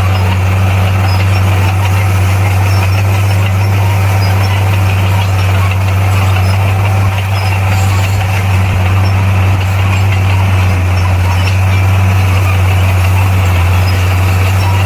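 Heavy diesel engine of earthmoving equipment running steadily at a constant speed, with a loud, even low drone.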